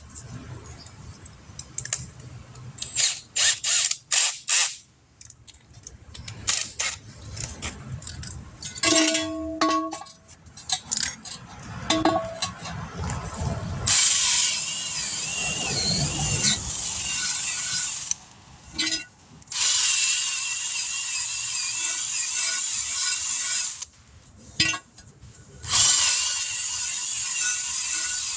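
Clicks and rattles of tools being handled, then a handheld power tool running in three long stretches with a wavering whine, used to clean old bead sealer off the wheel rim.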